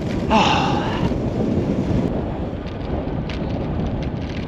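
Wind buffeting the microphone of a bicycle-mounted action camera while riding: a steady rumbling noise. About half a second in comes a short, breathy sound from the rider.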